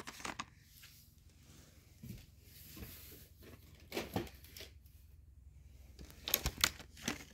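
Quiet handling of small cardboard makeup boxes: light rustling with a few sharp taps and clicks, a cluster of them near the end.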